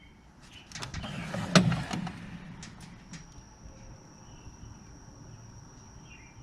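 A run of clicks and knocks, the loudest about one and a half seconds in, a couple more around three seconds in, then a faint steady high whine.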